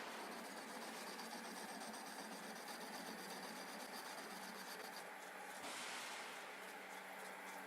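Manual centre lathe running while a single-point tool plain-turns a mild steel bar: a steady hum with a hiss of cutting, swelling briefly about six seconds in.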